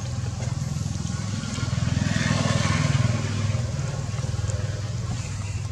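A motor vehicle's engine passing by, its hum growing louder to a peak about halfway through and then fading.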